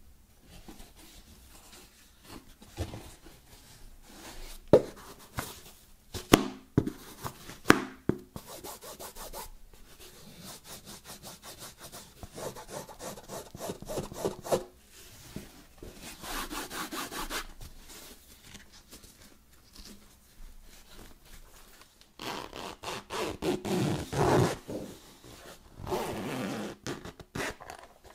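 Fingers rubbing and scratching over the fabric-covered hard carry case of Sony WH-1000XM4 headphones, in rasping strokes of a second or two each. Several sharp taps on the case come between about five and eight seconds in and are the loudest sounds.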